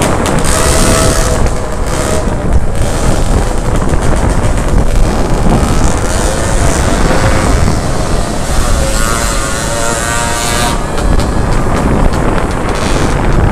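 Small two-stroke autocycle engines running at parade pace, under heavy wind buffeting on the microphone.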